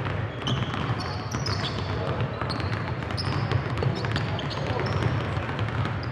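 Several basketballs bouncing irregularly on a hardwood gym floor as players dribble at once, with short high squeaks of sneakers on the court, over a background of voices.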